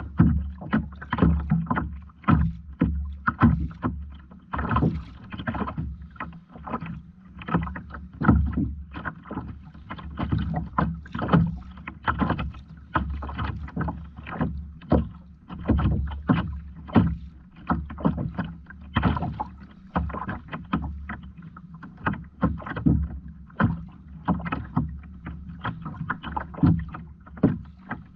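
Water splashing and slapping against a fishing kayak's hull in a quick, irregular run of short splashes, about one or two a second, over a low steady hum.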